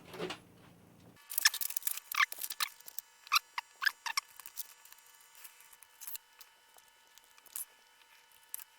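Plastic keycaps clicking and tapping as they are handled and pushed onto Cherry MX switch stems: a quick flurry of sharp clicks in the first few seconds, then scattered single clicks, over a faint steady high whine.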